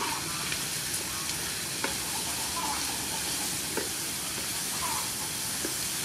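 Stir-fry sizzling in a frying pan as a wooden spatula stirs through sea snails and vegetables, with occasional light scrapes of the spatula against the pan.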